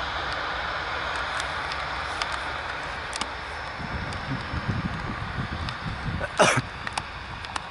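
Jet aircraft engine noise slowly fading away. From about four seconds in, wind rumbles on the microphone, and a short, loud rustle of handling noise comes a little after six seconds.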